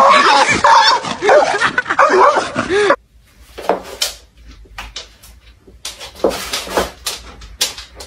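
Dog whining and yelping in a rapid run of high, rising-and-falling cries over a hiss as it lunges at a cat; it cuts off suddenly about three seconds in. A quieter stretch of scattered clicks and a few short whines follows.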